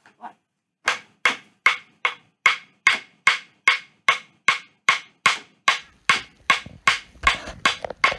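Intro music: a steady beat of sharp wooden knocks, about two and a half a second, starting about a second in, with a faint low rumble joining in from about six seconds.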